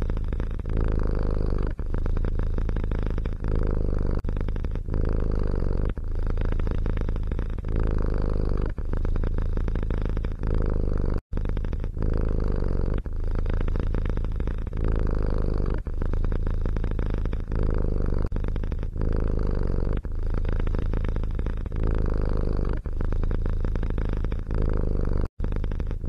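Domestic cat purring, a steady low purr with a short break about every second and a half as the cat breathes in and out. The sound drops out completely for an instant twice.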